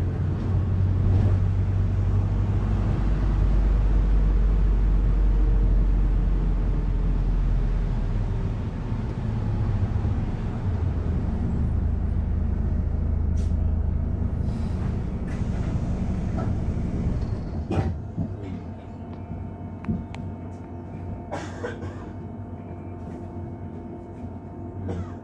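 Arriva London bus running on the road, heard from inside: a strong low engine drone for the first several seconds that eases off, the whole sound quieter after about 18 seconds, with a few scattered knocks and rattles.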